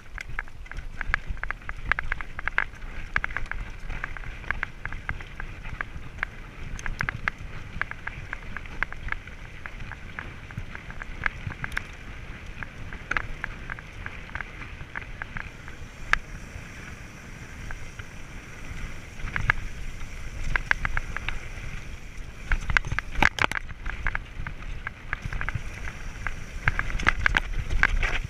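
Scott mountain bike rattling over a loose, rocky trail: tyres crunching on stones and the bike clattering with each bump, over a low wind rumble on the microphone. The clatter thins out on a smoother stretch midway and grows dense again over rougher ground near the end.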